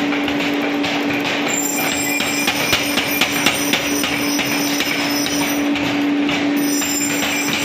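Mechanical power hammer running, its ram delivering rapid, closely spaced blows onto red-hot metal over a steady hum.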